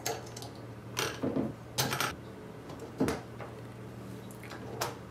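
Small steel screws and metal parts clinking and tapping against a cast aluminium tooling plate and steel linear rails as the rail screws are set in by hand: five or six short clinks, the loudest about three seconds in.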